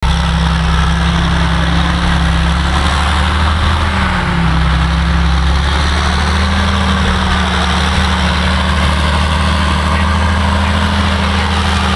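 Caterpillar 633 elevating scraper's diesel engine running at steady low revs as the machine drives forward, with a brief dip in pitch about four seconds in.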